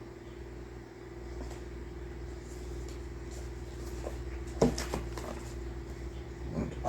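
Steady low hum, with a few sharp clacks and rustles from model kit contents being handled about two-thirds of the way in and again near the end.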